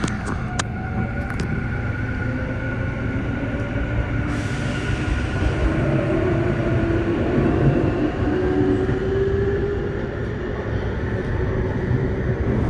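Tokyu 9020 series electric train running: the whine of its Mitsubishi full-SiC MOSFET VVVF inverter and traction motors, with a tone rising in pitch through the middle, over a steady rumble of wheels on rails. A few sharp clicks come in the first second or so.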